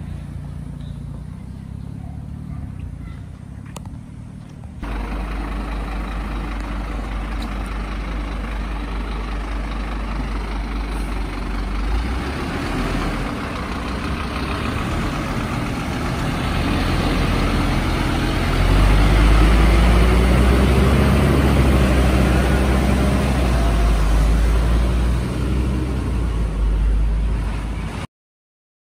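Scania ladder fire engine's diesel engine running low, then pulling away and driving past, the engine note rising and getting louder as it accelerates. The sound cuts off suddenly near the end.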